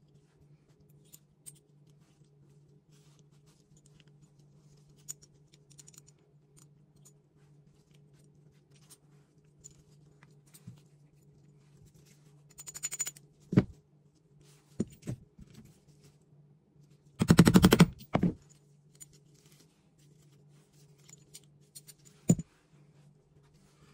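Small metal parts of a Beretta firearm clicking and clinking as they are handled and worked on. About halfway through there is a short, rapid rattle of clicks, and about three-quarters through a louder, dense rattle that lasts under a second.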